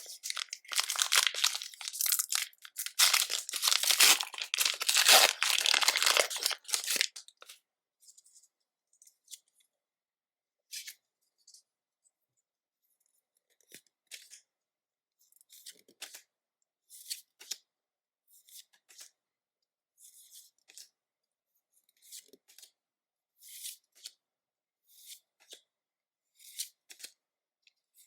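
Foil booster-pack wrapper crinkling and tearing open for about seven seconds, then a run of short, soft rustles and slides, about one a second, as the trading cards are handled one by one.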